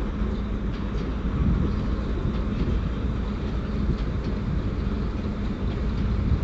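Steady low rumble of an approaching passenger train on the station tracks, with a faint steady hum.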